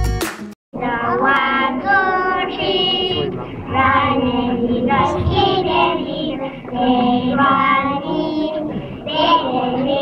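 A group of young children singing a nursery rhyme together, starting just under a second in after a brief silence.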